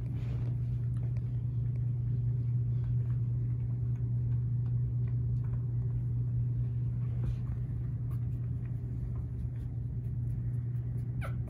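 A steady low hum, with faint scattered clicks and a brief squeak near the end.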